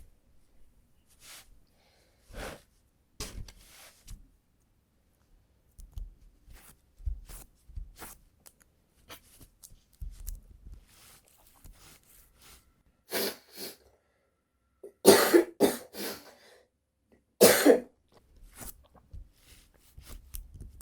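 Sticky lint roller worked over trousers to pick up cat hair, making short, quiet rustling strokes. A few loud, short bursts come about fifteen seconds in and again near seventeen seconds.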